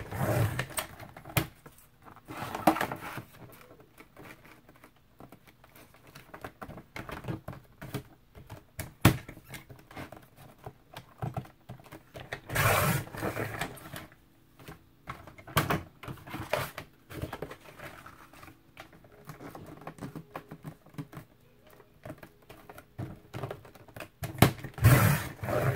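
Cereal-box cardboard being handled and cut on a sliding-blade paper trimmer: scattered clicks, taps and rustles of the board, with a few longer scraping strokes of the cutter.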